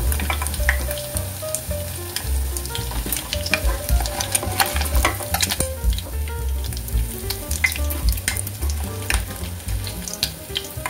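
Battered fish fillet pieces sizzling in hot oil, with a dense run of sharp crackles and pops, as they are lifted out of the pot with a slotted spatula.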